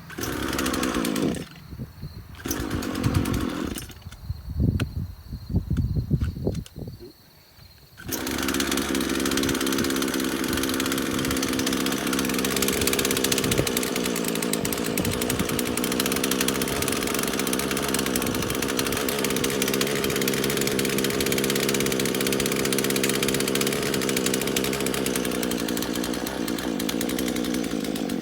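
Old Craftsman two-stroke chainsaw engine running in uneven bursts for the first several seconds, then catching and running steadily for about twenty seconds before cutting out at the end. It has sat unused for years and struggles to keep going, which the owner puts down to it having trouble picking up fuel.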